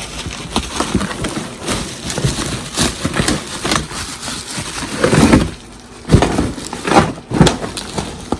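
A taped cardboard box being handled and opened: irregular crackling, rustling and knocks of cardboard and packing tape, with a few louder knocks in the second half.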